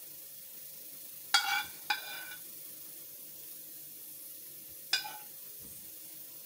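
Metal spoon clinking against a metal pan while scooping tomato and kefta sauce: three short ringing clinks, two close together about a second and a half in and one about five seconds in, over a steady faint hiss.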